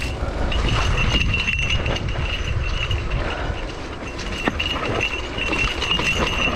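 Mountain bike riding down a rough dirt singletrack: tyres rumbling over the ground, the bike rattling over bumps with an occasional knock, and wind on the microphone, over a steady high whine from the bike.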